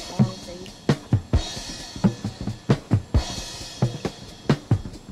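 Background music with a drum kit playing a steady beat: kick drum, snare and cymbal hits.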